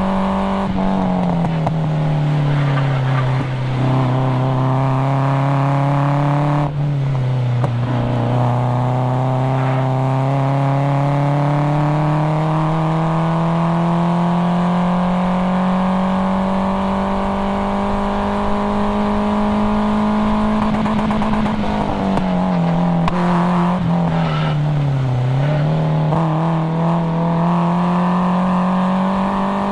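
1997 Nissan 240SX's stock KA24DE four-cylinder engine, breathing through a cat-back exhaust, running hard around a race track. Its pitch drops about a second in and again near eight seconds, climbs steadily for over ten seconds, then falls twice in quick succession a little past twenty seconds before rising again.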